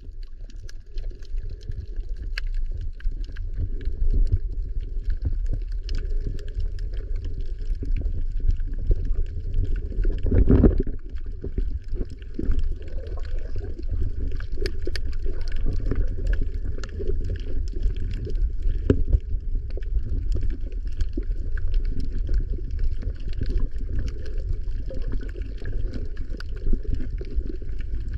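Underwater sound heard through a camera held below the surface on a coral reef: a steady low rumble of water moving around the camera, with fine crackling clicks throughout. A louder low surge comes about ten and a half seconds in.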